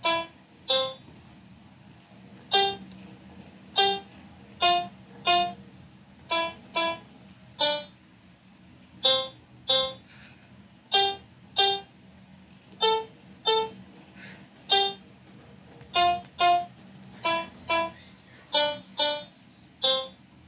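Toy coding robot playing short electronic piano-like notes, one per key, as it is moved across a printed piano-keyboard mat. A string of single notes of changing pitch, about one a second, some in quick pairs.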